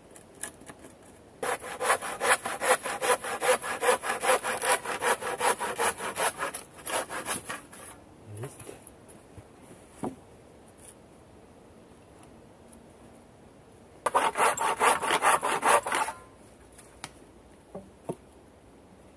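Hand saw cutting through wood in quick, even strokes, about four or five a second. It saws in two spells: a long run of about five seconds starting a second and a half in, then a shorter run of about two seconds near the end.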